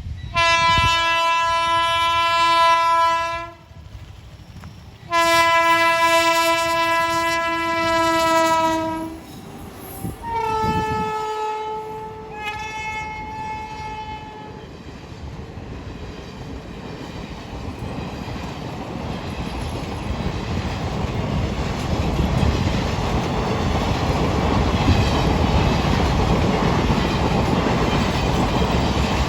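WAP-7 electric locomotive's horn sounding two long steady blasts, then a shorter third blast at a different pitch. The train then rolls past gathering speed, with wheel clatter and rumble growing steadily louder.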